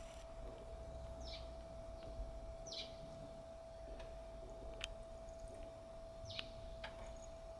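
Short, high bird calls, each a quick falling note, heard three times at uneven intervals over a faint steady hum, with a few sharp clicks in the second half.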